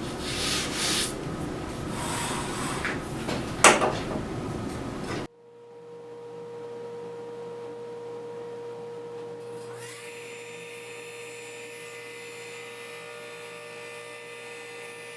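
Workshop handling noise: rubbing and light knocks, with one sharp click nearly four seconds in. After about five seconds it cuts off abruptly to a steady humming drone with one held tone, which grows brighter about ten seconds in.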